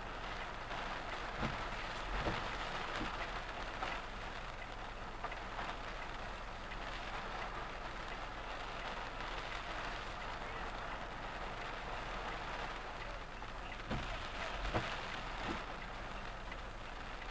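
Rain pattering steadily on a car's windshield and body, heard from inside the moving car over a low engine and road hum. A few louder single knocks, like heavy drops striking the glass, come near the start and again near the end.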